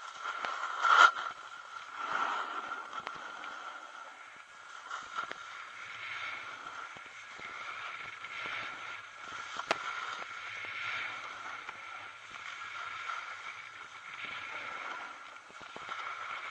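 Snowboard sliding and carving down packed snow: a steady scraping hiss that swells at each turn. A sharp knock about a second in, the loudest moment, and another near the middle.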